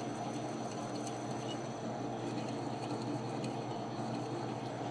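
Metal lathe running steadily, with a twist drill boring into the spinning crankshaft half held in its chuck: an even, unchanging hum.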